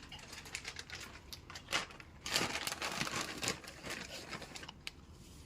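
Irregular crinkling and rustling, a dense run of strokes through the middle that thins out toward the end.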